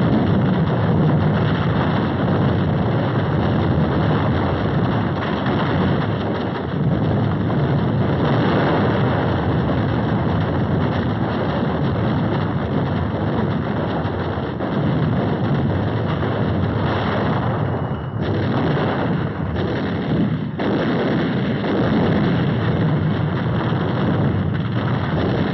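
Naval bombardment: a dense, unbroken barrage of gunfire and shell bursts, heard on an old film soundtrack.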